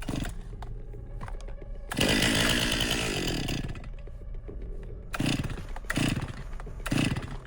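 Two-stroke chainsaw engine running, loudest for about a second and a half before it dies away falling in pitch. Three short loud bursts of engine sound follow, about a second apart.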